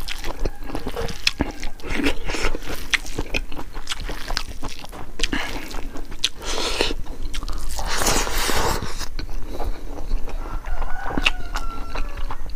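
Close-up chewing of chicken gizzard curry and rice eaten by hand: wet mouth clicks and smacks, with the squish of rice being mixed with the fingers.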